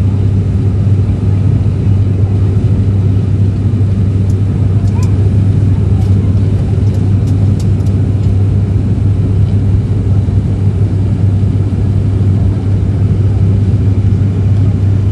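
Propeller airliner's engines and propellers heard inside the cabin: a loud, steady drone with a strong low hum. A few faint ticks come near the middle.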